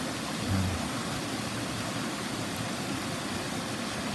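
Steady rushing of a mountain stream, an even hiss with no pauses, with a brief low thump about half a second in.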